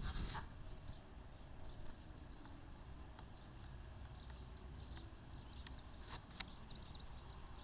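Faint, steady low rumble of the unexplained distant roar from the sky, which the uploader likens to a thousand hot rods racing on a far-off oval track. Over it come short high chirps of birds or insects and a few sharp ticks.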